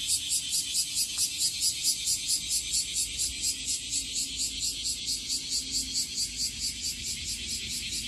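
Cicadas in the trees singing in a steady, high-pitched pulse of about four beats a second.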